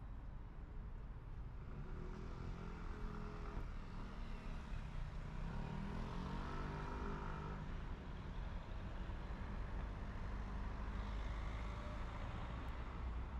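Road traffic at a city street junction: cars and a motor scooter driving past over a steady low rumble, their engine notes rising and falling around the middle.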